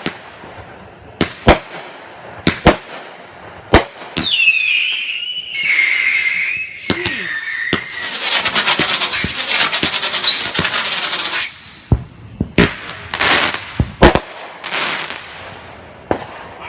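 A 200-gram, 23-shot consumer fireworks cake firing: a string of sharp bangs from shots launching and breaking, then a shrill whistle falling in pitch, then several seconds of dense crackling, then another cluster of bangs near the end.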